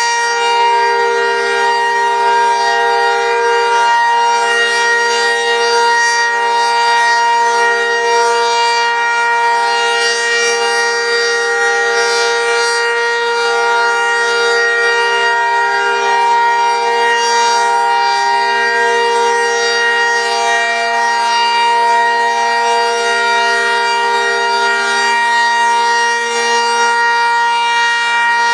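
Electromechanical outdoor tornado warning siren sounding steadily at full pitch. Several tones sound together and hold without winding up or down.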